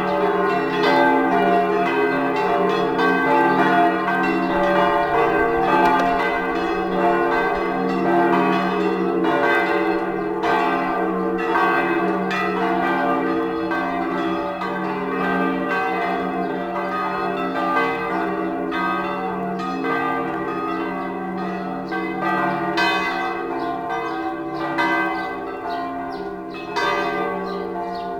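Church bells ringing continuously, strike after strike overlapping into a dense, sustained peal.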